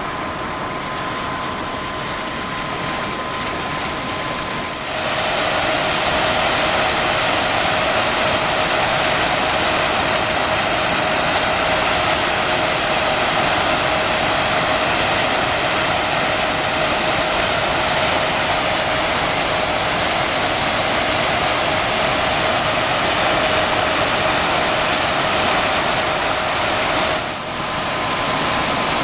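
Water rushing and splashing through a 100 kW Landustrie Archimedean screw hydro turbine as it turns, a steady rush that grows louder about five seconds in. A thin steady tone sits above the water noise.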